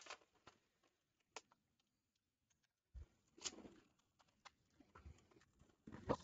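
Faint, scattered crunching and crackling of Doritos nacho cheese tortilla chips being crushed by hand, a few short crackles at a time, growing louder near the end.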